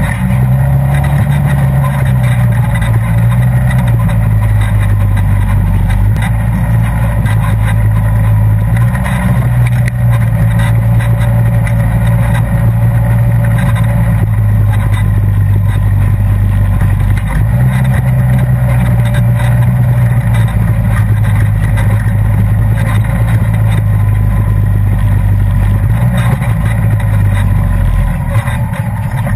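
Polaris RZR side-by-side's engine running under way, heard from inside its open cab; the engine note steps up and down in pitch a few times as the throttle changes, easing off near the end.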